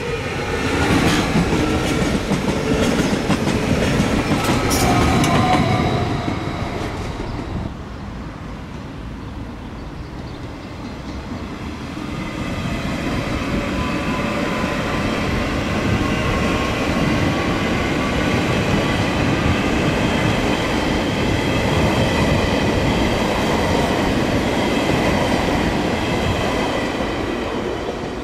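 An SOB Stadler FLIRT electric multiple unit passes close by, its wheels clicking over rail joints, and dies away about seven seconds in. Then an SBB FV-Dosto double-deck electric train rolls steadily past with a rumble and a steady high hum, fading near the end.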